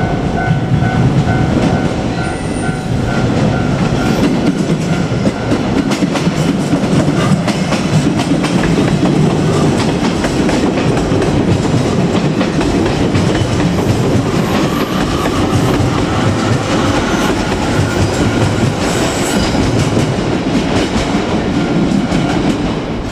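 A JR Kyushu 817 series electric train rolls past at a level crossing, its wheels clacking over the rail joints through most of the passage. The crossing's warning bell rings in pulses for the first few seconds until the train noise covers it.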